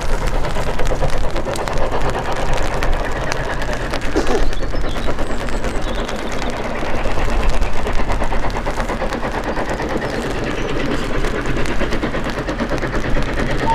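Steam tank locomotive working hard as it approaches hauling coaches, its exhaust beating in rapid chuffs.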